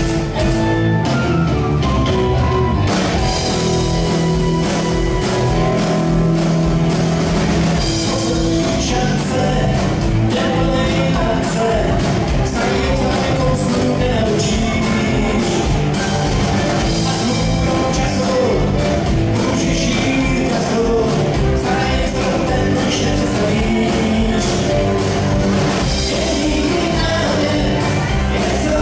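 Live rock band playing a song on electric guitars and drum kit, with a sung vocal.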